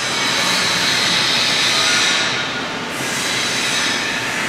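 Steady machinery noise in a machine shop: a rushing hiss with a high whine in it and no rhythm, easing briefly a little past the middle.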